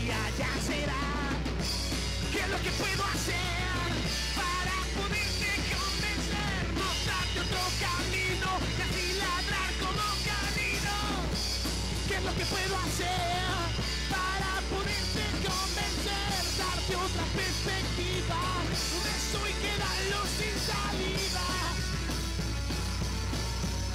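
Rock band playing a song, with a singer over drums and guitar.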